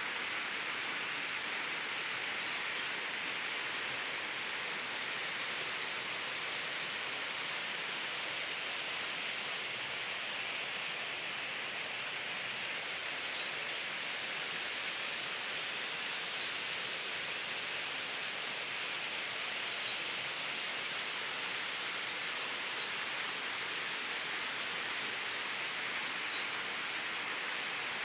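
Waterfall: falling water making a steady, even rushing hiss that holds unchanged throughout.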